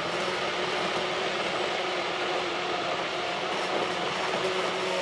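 Electric immersion blender running steadily, blending oat flakes into hot water, with a constant motor hum and whine.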